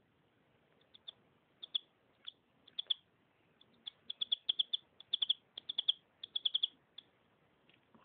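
Canary chirping in short, sharp notes: a few scattered single chirps, then from about halfway quick runs of chirps in several bursts.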